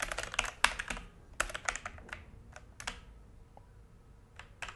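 Typing on a Logitech G413 mechanical keyboard: quick runs of key clicks, a pause of about a second and a half after the middle, then typing again near the end.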